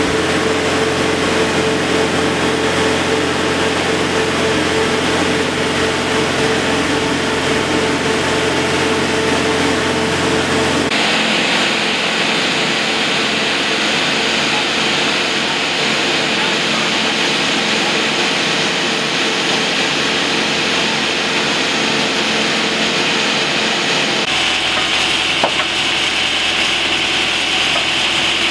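Boat travel lift's engine running steadily. The sound changes abruptly about eleven seconds in and again near the end, losing its low hum and leaving a higher steady hiss.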